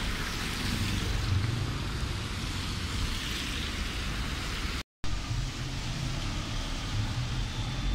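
Wind rumbling on a phone microphone over a steady hiss of rain, with the sound cutting out briefly about five seconds in.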